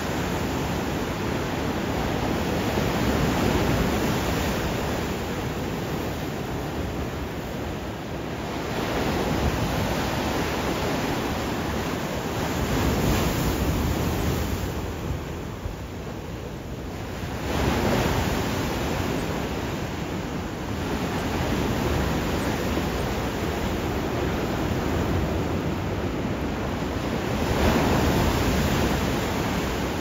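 Pacific Ocean surf: waves breaking and washing up the beach in a continuous rush that swells and eases every few seconds. There is a sharper break a little past halfway and another near the end.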